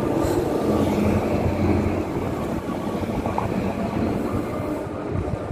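Steady rumble of city street traffic, with the adhan from the Masjid al-Haram's loudspeakers faint beneath it.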